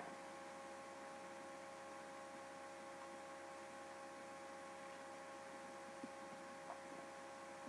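Very faint steady electrical hum: a few held tones over low hiss, with a couple of tiny ticks near the end.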